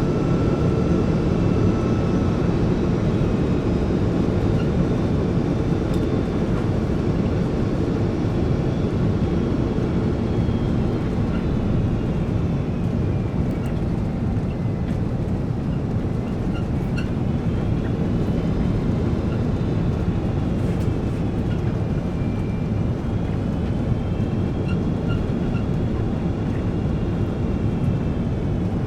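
Jet airliner cabin noise: a steady rumble and rush of air with the engines' thin whine, which dips and then rises again in pitch in the second half as the thrust changes.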